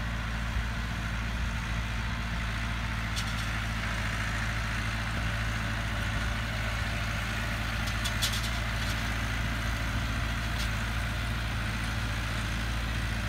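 Massey Ferguson 383 tractor's four-cylinder diesel engine running steadily while it pulls and drives a Vermeer 504 round baler baling hay from windrows. A few brief clicks sound about three and eight seconds in.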